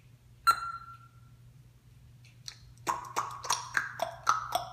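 African grey parrot making sharp clicking calls. A single click with a short ringing note comes about half a second in, then from about three seconds in a quick run of clicks, each with a short pitched note that shifts up and down, about three a second.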